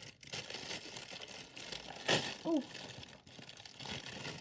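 Plastic wrapper crinkling and rustling as a pop-it fidget toy is handled and unwrapped, with one louder crackle about two seconds in.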